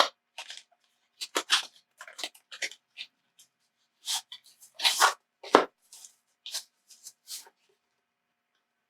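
Irregular crinkling and rustling of cosmetic packaging being handled and opened, in short bursts that stop a little before the end.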